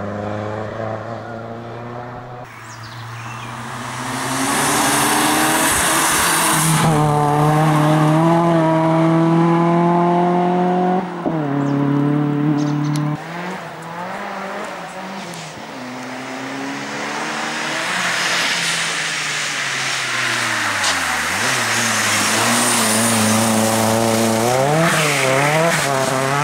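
Opel Astra turbo rally car's engine pulling hard under full throttle, revs climbing and dropping with each gear change, with tyre and wind hiss over it. About two-thirds of the way in the revs sink low, as for a slow corner, then build again with quick wavering revs near the end.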